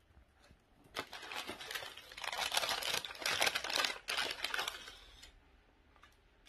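Paper crinkling and rustling as a small striped paper packet is handled and unfolded by hand: a dense, crackly rustle that starts about a second in, is loudest in the middle and stops about five seconds in.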